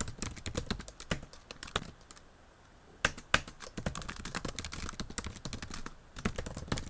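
Fast typing on a computer keyboard, a quick run of key clicks that breaks off for about a second around two seconds in, then resumes.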